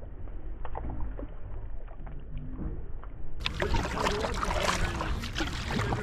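Water sounds around a canoe being paddled: low rumble with scattered small splashes and drips. About halfway through, it cuts abruptly to louder, closer splashing.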